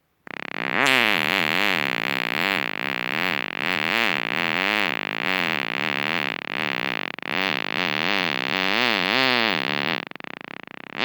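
A long fart lasting about ten seconds, its pitch warbling up and down about three times a second with a hissy edge. It dies down near the end, and a louder one starts right at the close.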